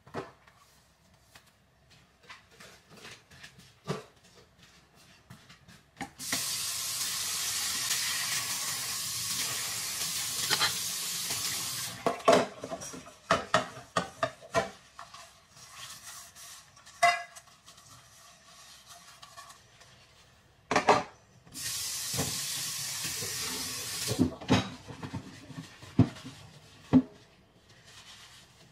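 Kitchen work: dishes and utensils clinking and knocking, with two stretches of steady hissing, one of about six seconds and a shorter one of about three seconds.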